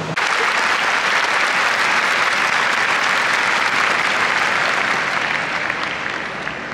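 Large stadium crowd applauding, a dense steady clapping that begins suddenly and dies away toward the end.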